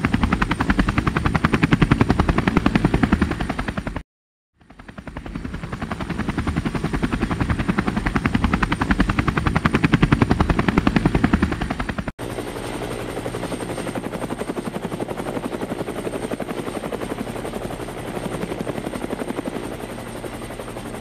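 Helicopter rotor blades beating in a rapid, even rhythm. The sound cuts out briefly about four seconds in and fades back up. Around the middle it changes to a quieter helicopter recording with a steady engine hum under the rotor beat.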